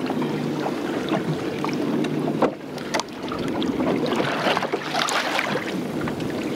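Small boat afloat, with wind on the microphone and water moving against the hull over a steady low hum. A couple of sharp sounds stand out about two and a half and three seconds in.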